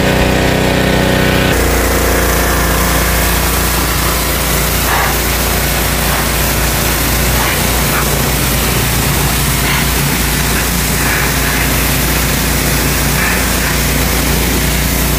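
AI-Power APW 3500 Pro gasoline pressure washer running steadily on its 223 cc (8 hp) engine. About a second and a half in the gun opens: the engine note changes and the hiss of the water spray from the green 20° fan nozzle joins it, going on steadily.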